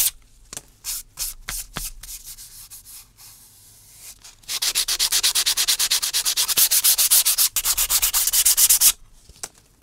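Sandpaper rubbed over the wood of an old razor case, sanding off leftover leather fibres and old glue: a few scattered strokes at first, then quick, even back-and-forth strokes, about six a second, from about halfway through until shortly before the end.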